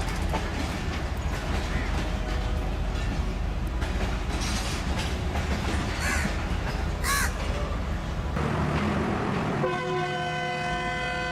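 Locomotive at a railway station running with a steady low rumble, then its horn sounding one long, steady blast from about nine and a half seconds in, still going at the end.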